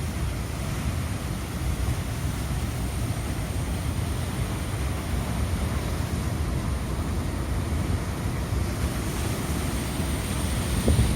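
Strong wind buffeting the microphone over rough sea surf whipped up by a typhoon. Near the end a wave's wash swells up as a brighter hiss.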